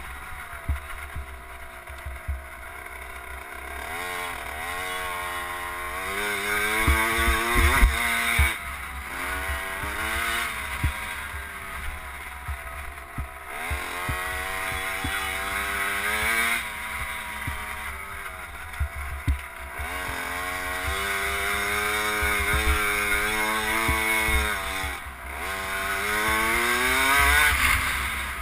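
KTM SX50 mini motocross bike's small two-stroke single-cylinder engine under hard riding, its pitch climbing as the throttle is opened and falling back off, about six times over. Low wind rumble and knocks from the rough track sit under it.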